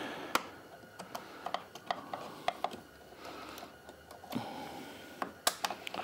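Small plastic cover being prized out of a Can-Am Spyder's dash panel with a small screwdriver: an irregular scatter of sharp plastic clicks and snaps, the loudest shortly after the start and about five and a half seconds in.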